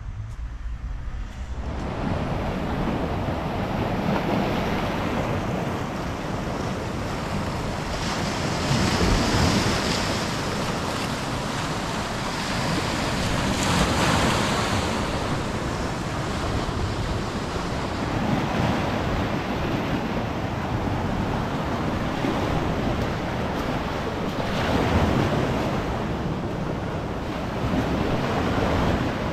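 Sea surf washing onto a shore, with wind buffeting the microphone. The noise comes in about a second and a half in and swells louder in several surges.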